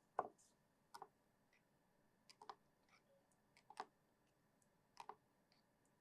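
Near silence with a few faint, short clicks and taps, roughly one every second or so, some in quick pairs: a utensil knocking against the vessel as the herbal mixture is stirred into milk.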